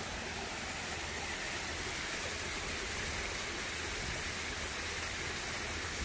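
Steady rush of a small waterfall and a shallow creek running over rocks.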